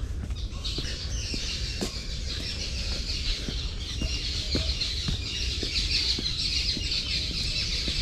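A dense, continuous chorus of many birds chattering, setting in under a second in, with soft regular footsteps on a flagstone path beneath it.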